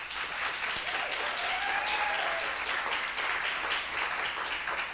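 Theatre audience applauding: dense clapping that thins out toward the end.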